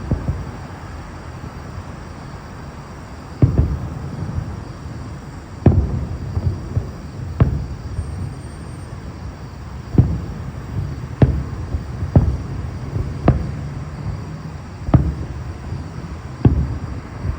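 Fireworks shells bursting: about ten deep booms at irregular intervals, each trailing off in a short rumbling echo.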